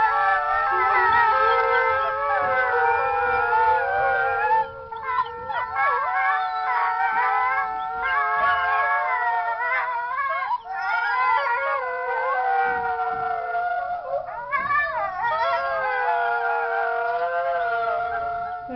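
Several dogs howling together in a recorded chorus, with many long, wavering howls overlapping and few breaks, played back as a novelty ringtone.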